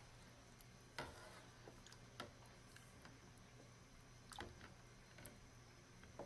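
Near silence broken by a few faint clinks and knocks, about four, as filled glass mason jars are nudged against each other and the stainless steel pot while towels are tucked between them underwater. A low steady hum sits underneath.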